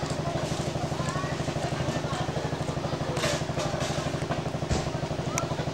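Jeepney's diesel engine idling with a steady, even chug.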